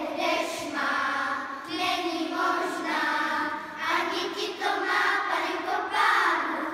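A children's choir singing a Czech folk song, phrase after phrase with short breaks between.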